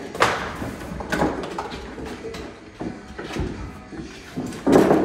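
Young caracals playing rough in a metal-panelled pen: a string of sudden thumps and bangs as they run, pounce and knock against the walls and floor. The loudest bang comes near the end.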